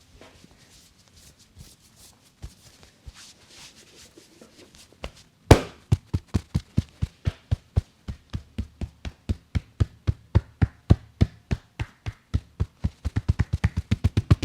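Faint rubbing of hands on hair and skin, then, from about five and a half seconds in, rapid percussive head-massage strokes: a hard first slap followed by steady rhythmic hand strikes, about three a second, quickening near the end.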